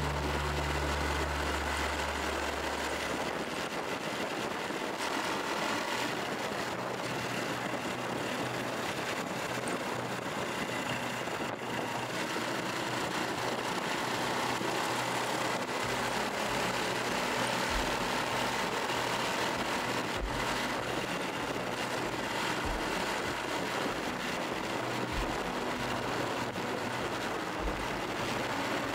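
Honda Super Cub 110's small single-cylinder four-stroke engine running steadily at cruising speed, mixed with wind and road noise.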